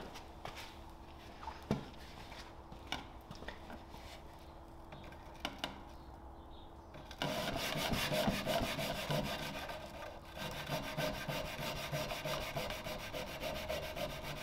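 Solid maple drawer front being hand sanded with a sheet of 80-grit sandpaper: quick back-and-forth strokes that start about seven seconds in. Before that, only a few light taps over a faint steady hum.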